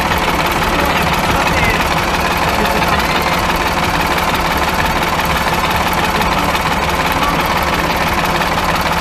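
Tractor engine running steadily at a constant speed.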